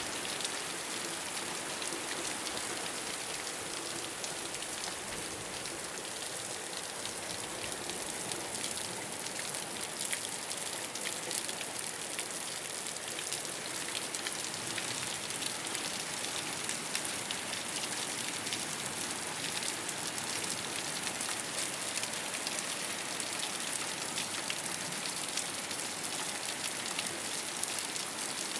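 Steady rain falling on a rooftop: an even hiss with a dense patter of small drop ticks.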